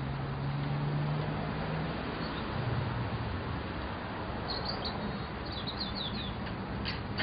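Outdoor ambience: a steady hiss with a low hum in the first couple of seconds, and small birds chirping several times in quick succession about halfway through.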